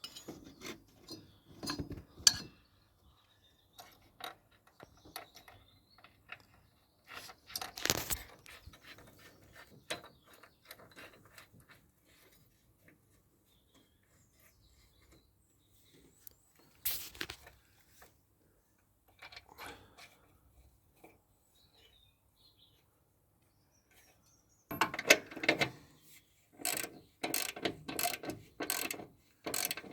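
Socket ratchet clicking in short runs as the nut on a new mower deck pulley is tightened, with a long fast run of clicks near the end.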